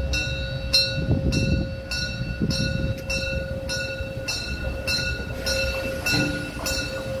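Class 52 steam locomotive rolling slowly into the station: a regular hiss about twice a second over a low rumble, with a few steady ringing tones over it.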